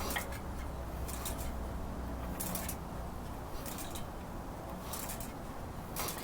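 Short scraping rasps about every second and a bit, six in all, over a low steady hum, as the Troy-Bilt Horse tiller's Briggs & Stratton engine is turned over slowly by hand with the valve cover off.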